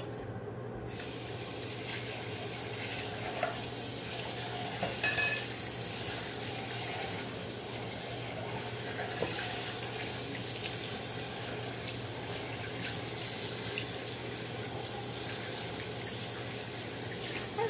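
Tap water running steadily into a sink, switched on about a second in. A brief high-pitched sound comes about five seconds in.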